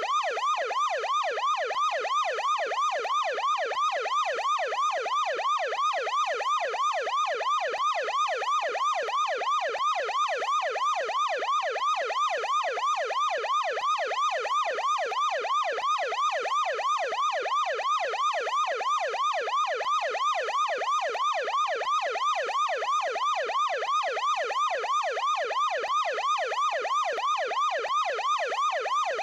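Ambulance siren on the yelp setting: a fast, even warble whose pitch sweeps rapidly upward and snaps back, several times a second, without a break.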